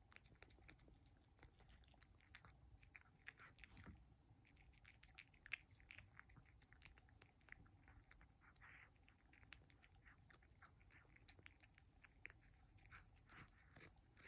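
Faint chewing and lapping of a domestic cat eating a piece of soft raw herring from a ceramic dish: a string of small irregular clicks and smacks, with one sharper click about five seconds in.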